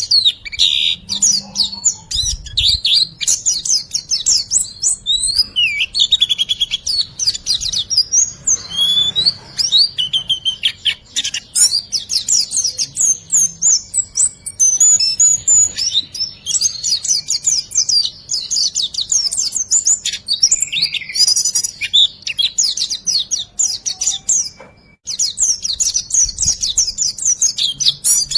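Songbird master recording of 'riwikan' song: dense, rapid high-pitched chirps and trills, phrase after phrase with hardly a pause, briefly dropping away about 25 seconds in.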